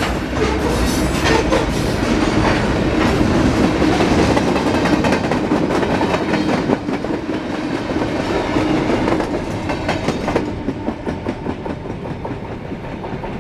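Freight cars of a Norfolk Southern manifest train rolling past, wheels clicking over the rail joints in a steady clickety-clack. It grows quieter about ten seconds in.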